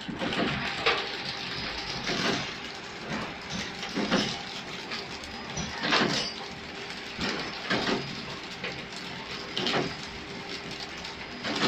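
Chikki flow-wrap packing machine running: a steady mechanical whir with a faint hum and a sharp knock about every two seconds.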